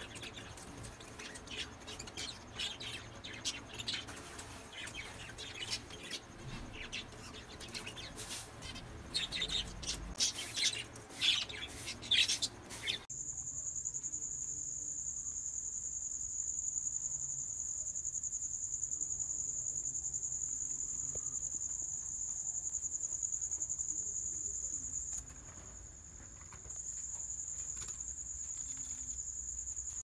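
A flock of budgerigars and other small cage birds chirping and chattering. About 13 seconds in this cuts to a steady high-pitched insect trill, which breaks off briefly about 25 seconds in and starts again.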